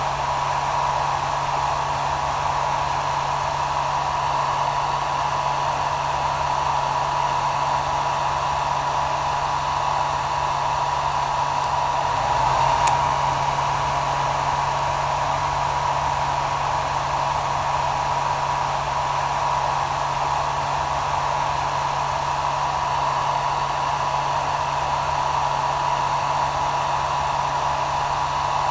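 Hair dryer running steadily: an even rush of blown air with a constant tone through it, unchanging throughout.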